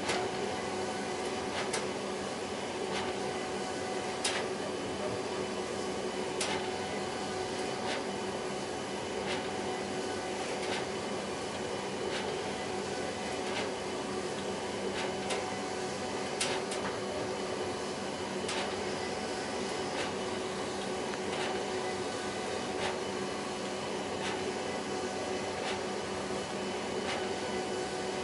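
HP Designjet 5000ps 42-inch large-format inkjet printer running mid-print: a steady mechanical whir with a constant hum, broken by a short sharp click every second or so.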